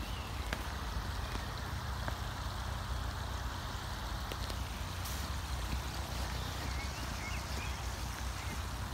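Steady outdoor background noise in a park: a low, fluctuating rumble under an even hiss, with a few faint high chirps near the end.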